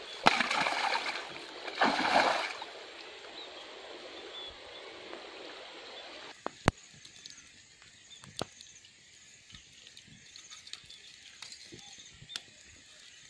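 Two loud splashes of water, splashed by hand by someone wading in a shallow stream, followed by a steady faint rush. About six seconds in this gives way to a small wood campfire crackling, with sharp pops about once a second.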